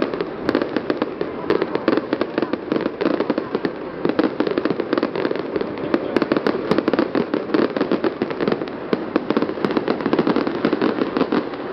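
Aerial fireworks display: a dense, unbroken barrage of shell bursts, many sharp bangs and crackles in quick succession.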